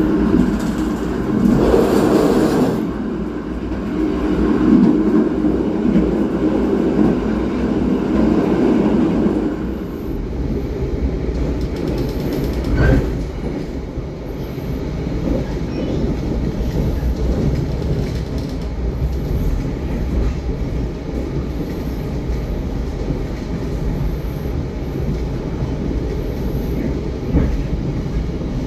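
Jayakarta Premium passenger train running along the line, heard from on board: the steady noise of the coach's wheels on the rails. The running noise is heavier for about the first ten seconds, then lighter, with one sharp knock a few seconds after the change.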